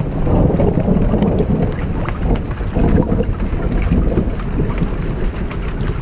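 A long roll of thunder rumbling low over steady rainfall, swelling in and easing off slightly near the end.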